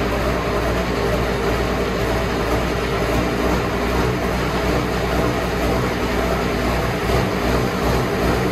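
Limited Pro Stock pulling tractor's diesel engine running steadily at idle out of its open exhaust stack, loud and even with no revving.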